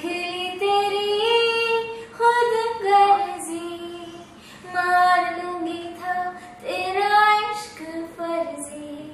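A woman's voice singing a slow Hindi song in long held phrases, with little else behind it.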